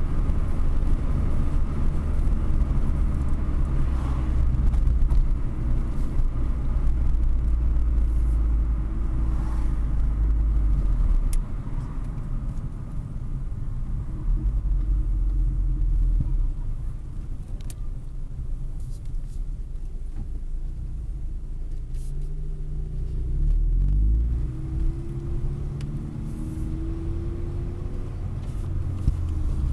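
Low, steady rumble of car engine and road noise heard inside a car's cabin. About three-quarters of the way through, an engine accelerates, its pitch climbing in a couple of rises.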